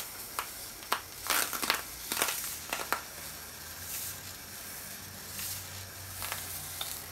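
Thin mango guitar side being handled and pressed against a torch-heated aluminium bending pipe: a run of sharp clicks and crackling rustles in the first three seconds, with a few more later. Under it runs the steady hiss of the propane torch flame.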